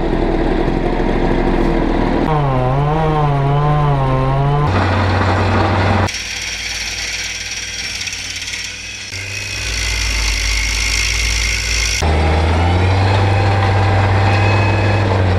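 Tree-removal machinery, engines and power tools, running loudly in segments that change abruptly every few seconds. In one stretch the pitch wavers up and down; a later stretch carries a high whine.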